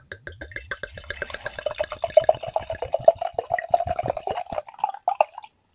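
Red wine glugging in rapid pulses from a bottle into a wine glass, the pitch of the pour rising slowly as the glass fills; it stops a little before the end.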